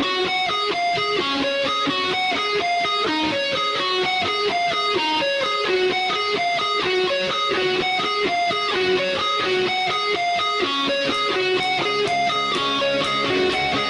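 Background guitar music: a quick, steady run of picked notes at an even level.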